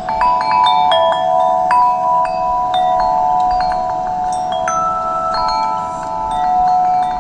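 Tubular metal wind chime ringing: its tubes are struck irregularly, with a quick flurry of strikes in the first couple of seconds and sparser ones after, each leaving a long ringing tone that overlaps the others.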